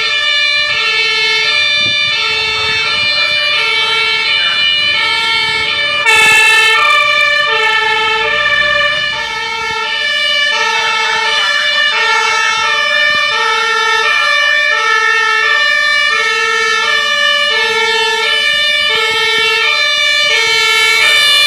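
German fire engines sounding two-tone Martinshorn sirens, alternating a low and a high tone about once every 1.2 seconds. A second siren overlaps out of step in the latter half. There is a short, loud burst of noise about six seconds in.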